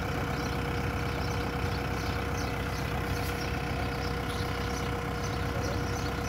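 Kubota M6040 tractor's four-cylinder diesel engine idling steadily, a low rumble with a constant hum above it.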